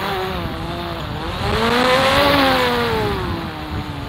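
DJI Mavic Pro quadcopter hovering close, its propellers whining with a pitch that rises to a peak about halfway and then sinks as the motors hold it in gusty wind. Wind rumbles on the microphone underneath.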